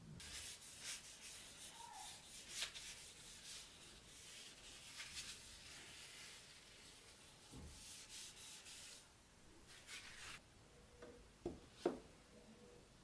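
Hand-worked abrasive strokes rubbing against the dagger during its restoration, a run of hissy strokes that stops after about nine seconds, with one more brief stroke later. Two sharp knocks come near the end.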